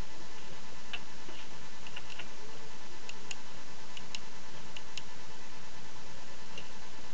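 Steady background hiss with faint hum, and scattered faint clicks a few times a second apart, like computer keyboard and mouse clicks.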